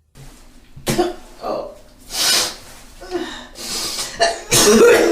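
A person retching and vomiting: a series of gagging, cough-like heaves with a strained voice, the loudest near the end.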